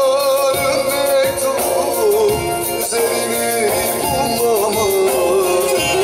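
A man singing a Turkish folk song (türkü) in a strong voice, the melody wavering and ornamented, over a bağlama (long-necked saz) played along with it.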